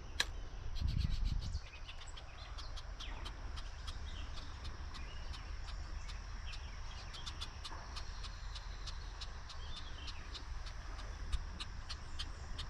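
Creekside insects chirping in short irregular ticks over a steady high drone, with a low rumble of moving water or wind underneath. A brief low thump about a second in.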